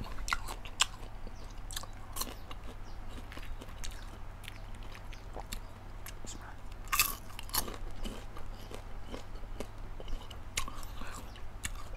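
A person chewing and crunching caramel-coated popcorn: irregular crisp crunches between quieter chewing, with a quick cluster of crunches about seven seconds in.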